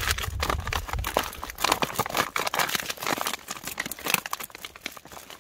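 Food pouch crinkling and crackling in irregular bursts as it is pulled open and handled.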